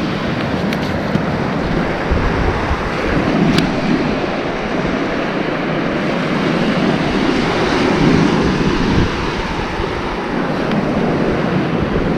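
Surf breaking and washing on the beach, with wind buffeting the microphone in gusts.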